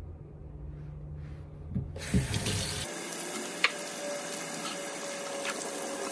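Kitchen mixer tap turned on about two seconds in, water running steadily into a stainless steel sink and splashing over hands being washed under it.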